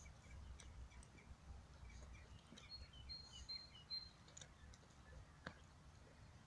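Quiet garden ambience with faint birds chirping, including a short run of high whistled notes near the middle, over a low background rumble and a few soft clicks.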